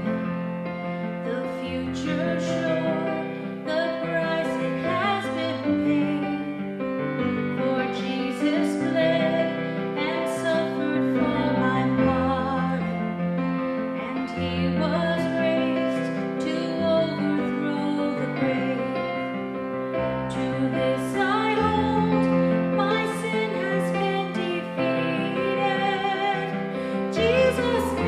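Music: a slow song with a woman singing over instrumental accompaniment.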